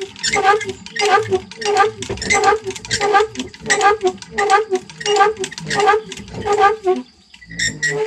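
Well windlass being cranked, its axle squeaking once per turn, nearly two squeaks a second, until it stops about seven seconds in.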